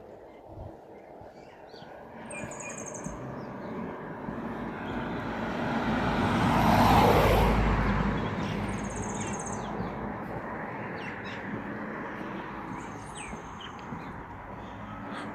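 A vehicle drives past, its noise swelling to a peak about halfway through and then fading. Small birds chirp in short high trills several times.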